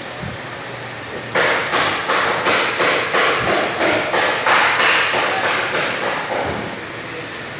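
Electric wall fan whirring steadily, joined about a second in by a run of sharp, evenly spaced knocks, about three a second, that stop after some five seconds.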